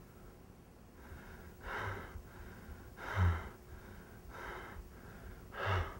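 A man gasping for breath in four heavy, ragged breaths about one every second and a half, several with a slight moan in them: the laboured breathing of a man who has been shot.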